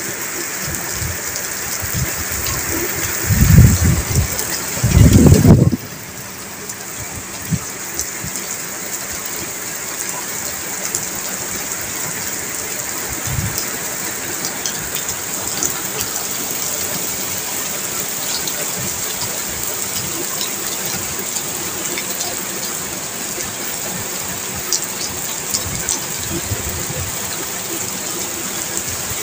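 Steady rain falling on a railway platform and tracks, a constant hiss with scattered drop ticks. About three and five seconds in, two loud low rumbles stand out over the rain.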